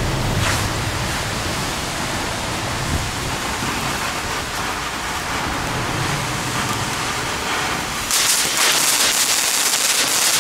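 Category 1 firework fountain burning: a steady spraying hiss, becoming louder about eight seconds in with dense crackling as it throws out glittering stars.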